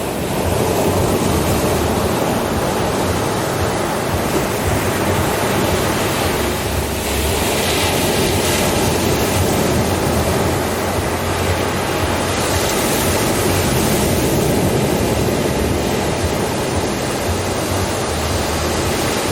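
Steady rushing noise from a relaxation soundscape that swells twice, over a low steady hum.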